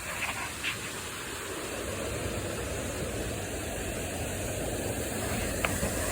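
Steady rushing of water from a river's cascades and waterfalls, an even hiss with a few faint clicks on top.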